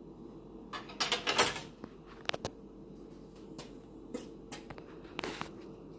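A metal utensil scraping and clinking against a stainless steel mixing bowl as thick cake batter is stirred, in irregular strokes with the loudest clinks about a second in.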